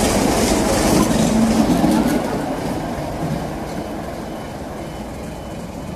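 BR Class 33 diesel locomotive passing close by with its Sulzer eight-cylinder engine running. The sound is loudest in the first two seconds, then fades steadily as the locomotive moves away.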